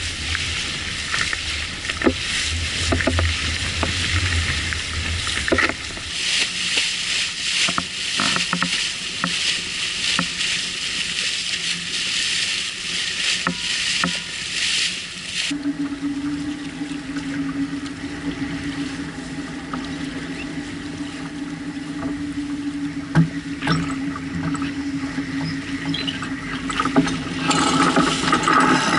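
Water rushing and splashing along a sailboat's hull as it sails, with wind noise on the microphone. About halfway through this changes suddenly to a steadier wind noise over a low hum. Near the end a cockpit winch starts clicking as it is cranked.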